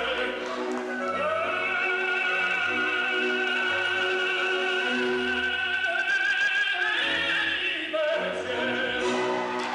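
Operatic singing over orchestral accompaniment, with a long high note held for several seconds near the middle.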